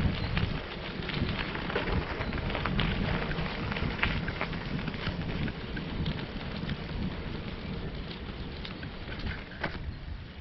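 Bicycle tyres rolling over light gravel: a dense crackle of small stones with many sharp ticks, over a low rumble.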